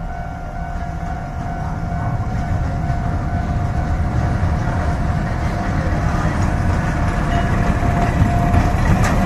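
Narrow-gauge sugar-railway diesel locomotive hauling open tourist carriages, its low engine rumble growing steadily louder as it approaches and draws alongside. A steady warning tone, the level-crossing signal, sounds throughout, and near the end quick wheel clicks come in as the train passes close.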